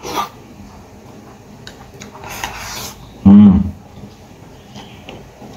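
A man eating at the table: soft chewing and chopsticks working rice in a ceramic bowl, with a short breathy noise a little past two seconds in. About three seconds in comes a brief voiced hum, the loudest sound.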